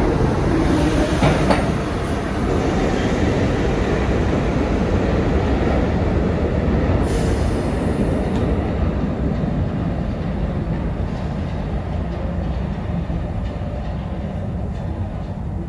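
R62A subway train pulling out along the express track, its running rumble and wheel-on-rail noise slowly fading as it draws away into the tunnel. A brief high hiss comes about seven seconds in.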